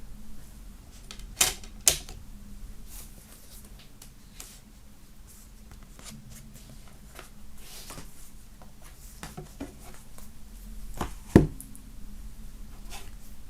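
Box set contents being handled: scattered light clicks and rustles of cardboard and paper, two sharp taps about a second and a half in, and a heavier knock near the end.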